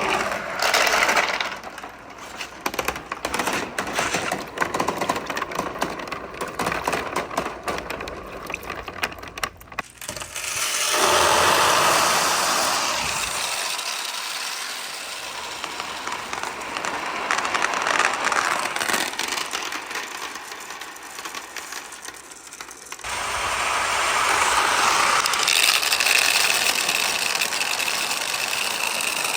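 Marbles rolling and clacking down a wooden marble run. For about the first ten seconds there is a dense patter of quick clicks. After that comes a steadier rolling rush, which shifts abruptly twice.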